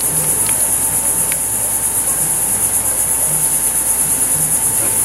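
A steady, high-pitched insect chorus with a fast, even pulsing. A few faint light taps sound in the first second or so.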